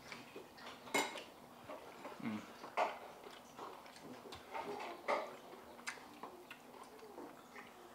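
Plates, bowls and cutlery clinking lightly as people eat at a table: scattered short clicks, the sharpest about a second in, near three seconds and around five seconds.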